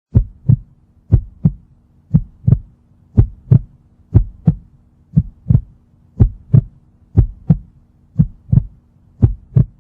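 Heartbeat sound effect: pairs of low lub-dub thumps about once a second, at a steady pace, over a faint steady hum.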